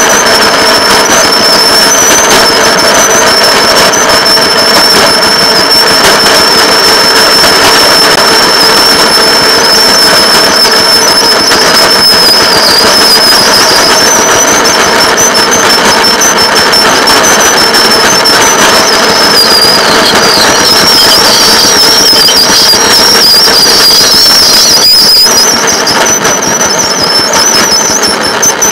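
A rail motor car's engine running steadily as it travels along the track. A high steady whine rides over it and wavers in pitch around the middle and again in the last third.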